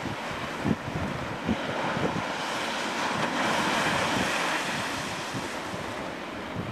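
Storm surf breaking and washing up a stony shore, swelling to its loudest in the middle, with strong wind buffeting the microphone in a few low thumps.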